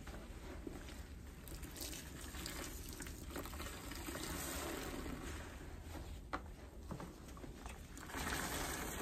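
Soaked sponges squeezed and wrung by gloved hands in a bucket of foamy water, squelching, with water pouring and dripping back into the bucket. It grows louder near the end.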